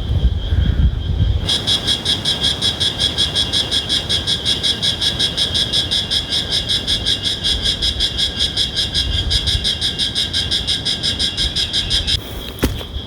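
A wild animal's call: a loud, rapid, evenly pulsing high-pitched chorus that starts suddenly, runs for about ten seconds and cuts off near the end, over a steady high background drone.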